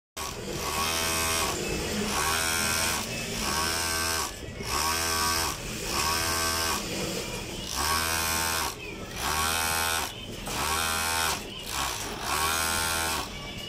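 Industrial overlock sewing machine (serger) stitching fabric in short runs of about a second each, about nine in a row. The motor and needle whine speeds up and slows down with each run, with a brief dip between runs.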